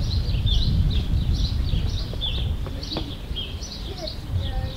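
Small birds chirping, a quick run of short high chirps several times a second, over a steady low rumble.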